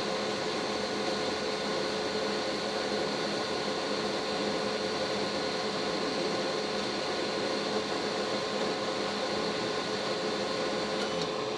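Laser engraving machine running: a steady whirring hum with a few constant tones. It cuts in abruptly and cuts off near the end.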